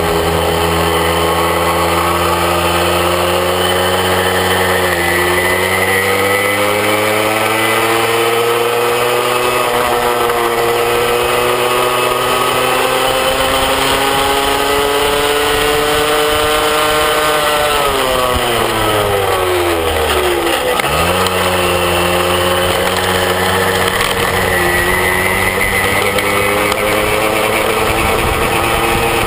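Small moped engine running under way. Its pitch climbs steadily for about twelve seconds as it speeds up, drops sharply as it slows, then holds steady again.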